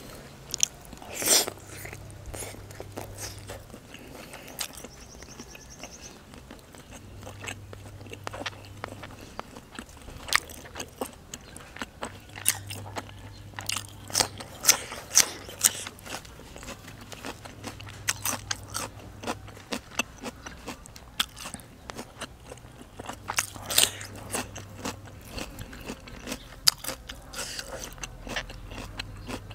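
Close-miked eating: wet chewing of stuffed squid, broken by irregular sharp crunches as raw vegetable is bitten, the loudest about a second in and several more through the middle.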